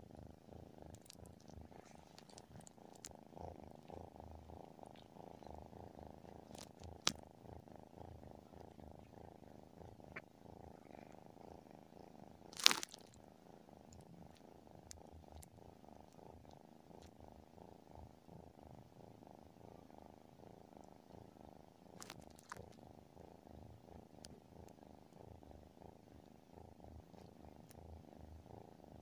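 Tabby cat purring steadily and softly in its sleep. A few sharp clicks stand out over the purr, the loudest about halfway through.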